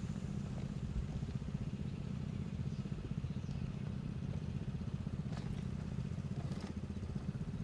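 Engine of a flood-water pump running steadily, a low pulsing drone. A couple of faint knocks come about two-thirds of the way through.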